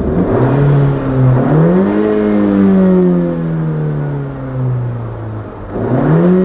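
Honda Civic's 1.5-litre turbocharged four-cylinder, fitted with an aftermarket cold air intake, is revved twice. Each time the pitch climbs quickly and then sinks back only slowly: a rev hang, which the owner guesses comes from the throttle blade closing slowly when he lets off.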